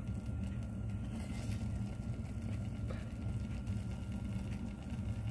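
A steady low machine rumble that cuts off suddenly at the end.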